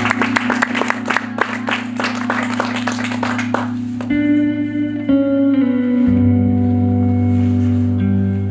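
Instrumental music: quick clicking strokes over a held low note, which stop about halfway and leave sustained chords that shift twice.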